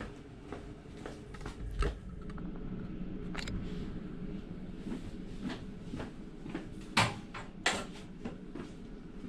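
Clicks, knocks and rustling from a camera being handled and set on a small desktop tripod, with two louder knocks a little past the middle, over a steady low hum.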